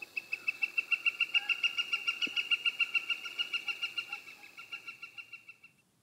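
Northern flicker giving its long call: a fast, even series of high, loud "wik" notes, about seven a second, for over five seconds, fading over the last second before it stops.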